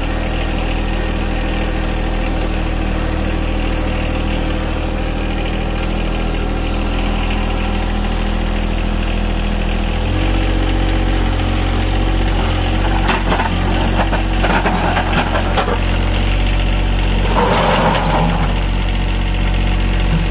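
A machine's engine running steadily, then stepping up to higher revs about halfway through. Bursts of rattling and clattering follow twice near the end as the load is dumped.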